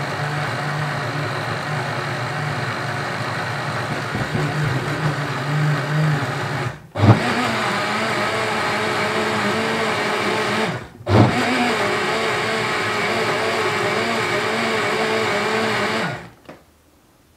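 Bosch VitaStyle Mixx2Go personal blender running, blending a spiced oil marinade. The motor cuts out briefly twice and comes back with a jolt each time, then stops near the end.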